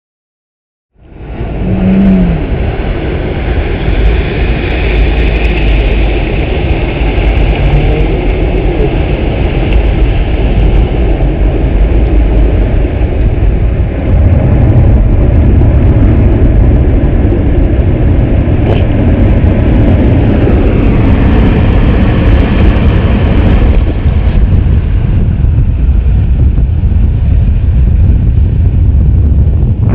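Loud, steady rush of wind buffeting the microphone over the roar of big surf, cutting in suddenly about a second in.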